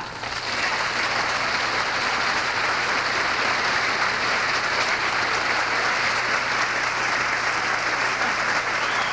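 Studio audience applauding steadily after a song ends.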